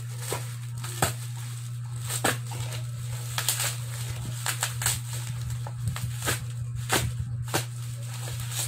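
Plastic packaging crinkling and rustling as a sealed package is worked open by hand, with many irregular crackles and clicks over a steady low hum.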